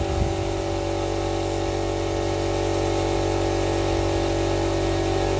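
A 150-litre air compressor running steadily, an even drone with no change in pitch.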